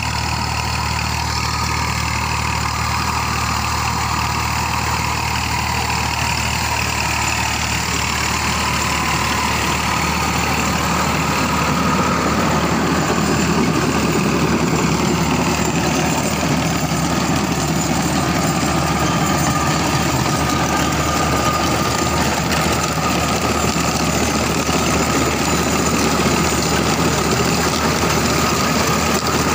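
Diesel tractor engine running steadily while pulling a rotavator that churns and chops the soil. The sound grows louder about a third of the way through as the tractor and its rotavator pass close by.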